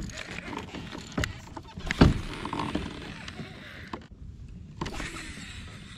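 Casting and retrieving a lipless crankbait on a baitcasting rod from a kayak: a few sharp knocks, the loudest about two seconds in, then the reel being cranked with a steady hiss.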